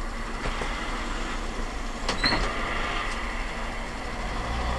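Steady running and road noise of a city bus in motion, heard from its dashcam in the cab: a low rumble with hiss, plus a couple of clicks and a brief squeak about two seconds in.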